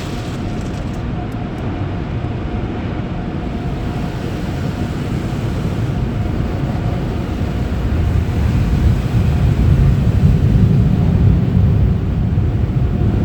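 Automatic tunnel car wash machinery heard from inside the car: a steady low rumble that grows louder about eight seconds in.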